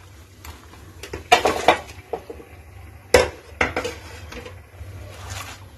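Fresh spinach leaves rustling as a hand presses them down into a stainless steel pot of water, with irregular knocks and clinks against the steel; the sharpest knock, with a short ring, comes a little past halfway. A low steady hum runs underneath.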